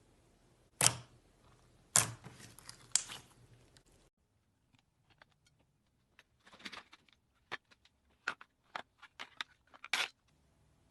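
Slime being squeezed and pressed, giving sharp pops and crackles: a few loud pops in the first three seconds, then a run of smaller clicks and pops.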